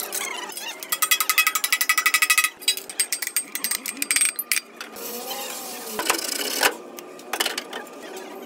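Metalworking clatter: a fast, even mechanical rattle of rapid metallic strokes for about a second and a half, followed by scattered clinks and scraping of sheet metal and hand tools.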